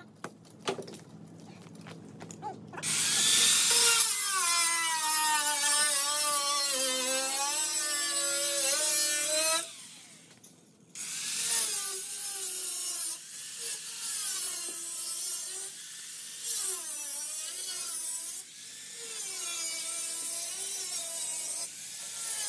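A cut-off wheel cutting into the sheet-metal rear quarter panel of a Pontiac Firebird, its whine wavering in pitch as the wheel bites, in two long runs with a short break about ten seconds in. A hiss and a few sharp clicks come first.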